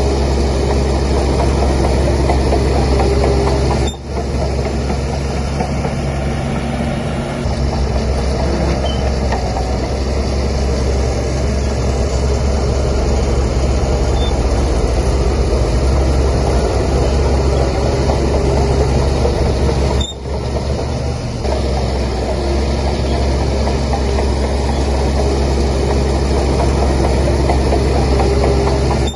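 Heavy diesel engine of a Shantui DH17C3 bulldozer running steadily as it works, a low continuous drone, dipping sharply for a moment twice.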